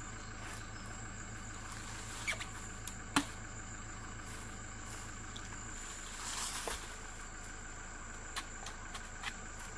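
A few sharp knocks of a machete cutting into a bamboo shoot, two to three seconds in, and a short rustle about six seconds in, over a steady high insect drone.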